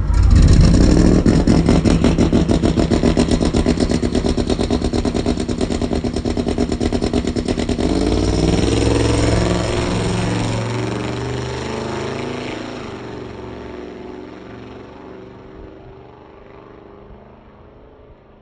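Twin-turbocharged 2023 Ford F-150 drag truck doing a burnout, its engine held at high revs for about eight seconds. Then the engine note rises as the truck pulls away, and the sound fades steadily as it drives off down the track.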